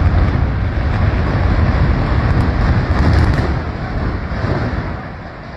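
A high-rise building collapsing in an implosion demolition: a loud, sustained low rumble that eases off over the last second or two.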